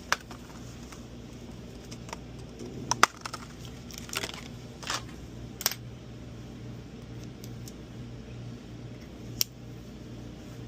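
Scattered small clicks and light clatter from repair tools and small phone parts being handled on a workbench, with one sharper click about three seconds in. A low steady hum runs underneath.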